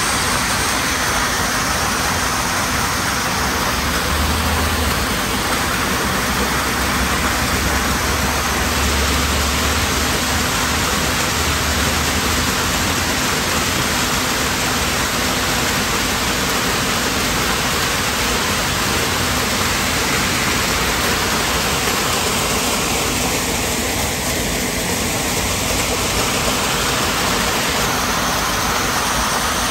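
Rainwater runoff cascading down a rock face as a waterfall and splashing onto the roadside: a steady rushing of water.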